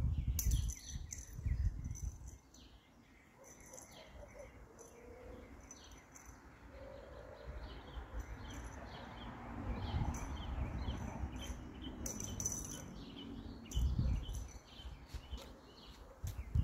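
Small birds chirping over and over in the background, with a few spells of low rumbling on the microphone.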